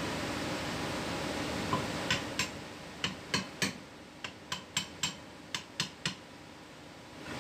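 About a dozen light, ringing metallic taps, irregular at two or three a second, as a small brass-tipped tool taps around a steel forklift clutch hub to seat a part in it. A steady hiss sits underneath and drops away about two seconds in.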